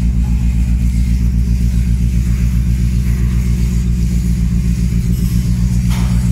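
A ship's diesel engine running steadily, a deep hum with a regular throbbing pulse, heard on deck near the funnel. A brief knock near the end.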